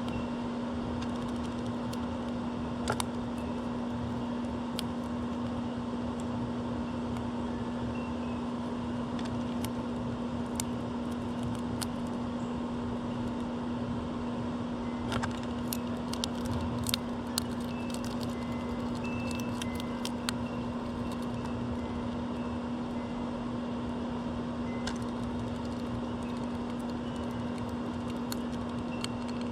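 Steady mechanical hum with a constant low tone, in the manner of an air-conditioning unit or fan. Scattered sharp clicks and taps, bunched midway, and a few faint short high bird chirps.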